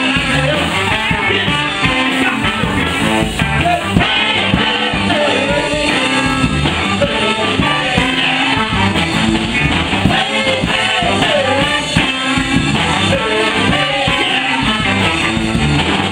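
Live rock band with a horn section playing: a man sings lead over electric guitar, drums and bass, with trombone and saxophone playing along.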